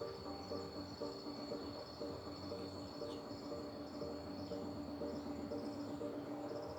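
Crickets and other insects trilling steadily, with short high chirps, over a lower pitched sound that repeats about twice a second.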